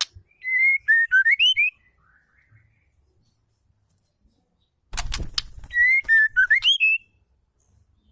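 Female white-rumped shama giving a short whistled phrase of several notes, rising at the end, repeated twice about five seconds apart, with a quick burst of sharp clicks just before the second phrase.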